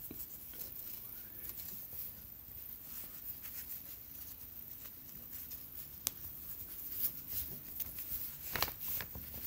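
Braided rope rustling and scraping against itself and the fingers as a bowline is tied, with a few sharper small clicks in the second half.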